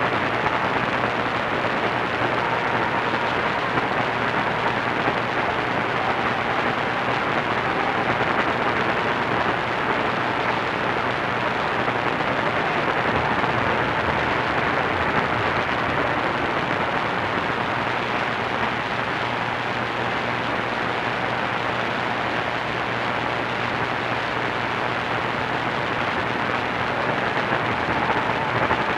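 AM radio static from a receiver tuned to the 1490 kHz band for a distant station: steady hiss and crackle with a low hum, and no programme audible above it as the signal fades. A faint whistling tone comes through at the start and again near the end.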